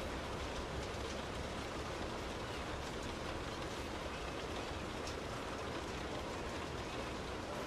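Steady rain falling on a car's roof and windows, heard from inside the cabin: an even patter with scattered drop ticks.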